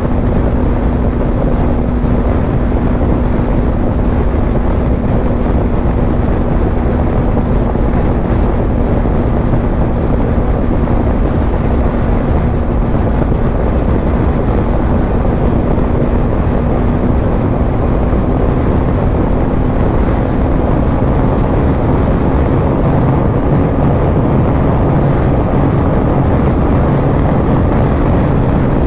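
Wind rushing over the microphone with the steady drone of a BMW G 310 GS single-cylinder engine at highway speed, around 138 km/h. The engine note holds steady and creeps slightly higher in the second half.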